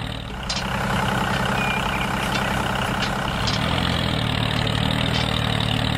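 Tractor engine running steadily with a low, even hum, as the sound of a miniature toy tractor on the move.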